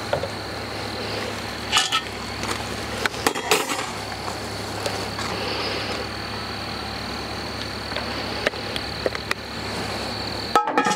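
A few light clinks and knocks of a cast iron Dutch oven and its lid as olive oil is poured into the pot, over a steady outdoor hiss with a constant high thin trill.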